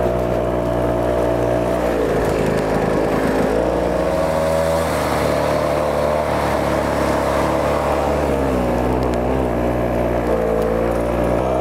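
Small engine of a motorized ski propulsion unit running under load through snow. Its speed drops about two seconds in, picks back up, then sags again for a couple of seconds near the end.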